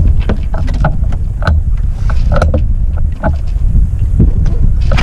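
Heavy wind buffeting the microphone aboard a small sailboat, with frequent short knocks and clicks.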